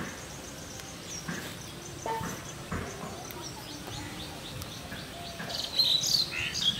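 Birds chirping with many short calls, growing louder and busier near the end, with a few faint knocks in the first three seconds.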